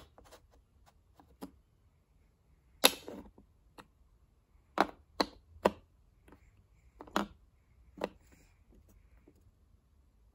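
A series of short, sharp clicks and taps, irregularly spaced. The loudest comes about three seconds in, and a cluster of clear ones follows between about five and eight seconds in.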